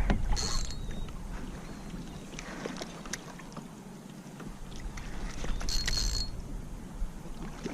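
Quiet sounds of a kayak on the water with a few faint ticks and knocks, and two short high hisses, about half a second in and about six seconds in.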